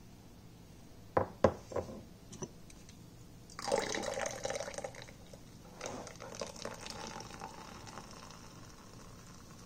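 Carbonated water poured from a bottle into a glass of dark cola syrup, splashing and ringing in the glass as it fills. It pours in two spells, the second raising a foaming head that fizzes on afterwards. A few sharp knocks come first, about a second in.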